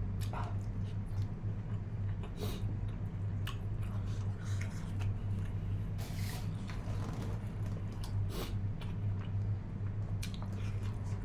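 A person chewing and biting food up close, with scattered wet smacks and clicks of the mouth, over a steady low hum.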